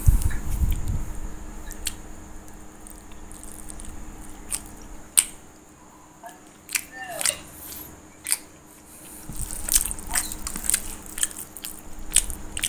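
A person chewing a mouthful of rice and fish curry close to the microphone, with scattered wet mouth clicks and lip smacks. A low rumble in the first second.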